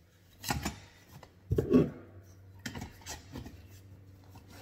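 Hand tools being handled: four or five short clicks and scrapes about a second apart.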